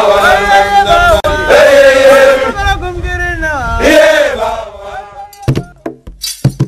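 Music: male voices chanting in long, sliding held notes. About five and a half seconds in the singing stops, and short sharp instrument strikes over a low steady note take over.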